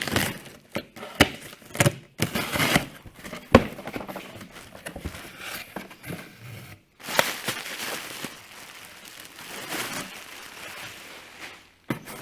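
Packages being opened by hand: tearing and crinkling of packaging in several rustling stretches, broken by sharp knocks and clicks as the box and its contents are handled.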